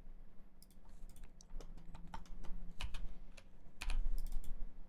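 Computer keyboard keys clicking in a few short, irregular clusters with pauses between, as shortcuts are typed during CAD work.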